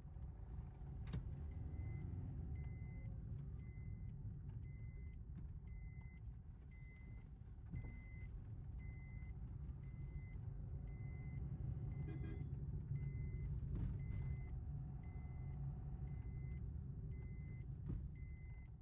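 Inside a moving Maruti Suzuki Dzire: steady low road and engine rumble from the car driving, with an even high beep repeating about three times every two seconds.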